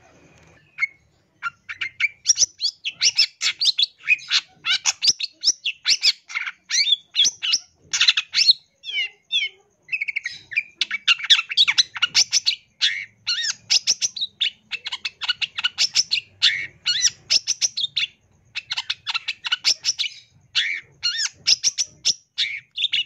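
Long-tailed shrike (cendet) singing a fast, continuous, varied song of rapid chattering phrases and trills, the mimicry-rich 'full isian' song that bird keepers play to tutor young shrikes. It starts about a second and a half in and pauses briefly once near the end.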